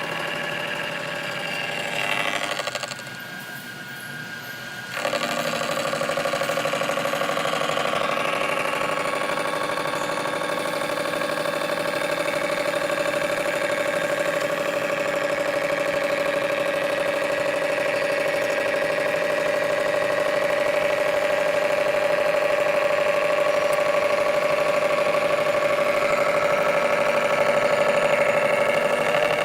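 CNC gantry milling machine running: a steady machine whine made of several held tones. It quietens for about two seconds near the start, then comes back with one mid-pitched tone standing out and stays steady.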